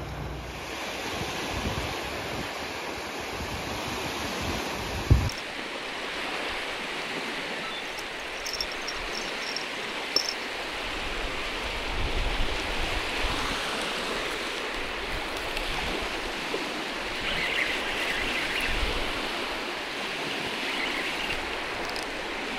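Small waves lapping at the shore, with wind in the background. A single sharp knock comes about five seconds in, and a fainter click about ten seconds in.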